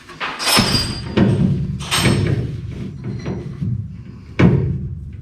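Background music with three loud thumps over it, the last one, near the end, the loudest.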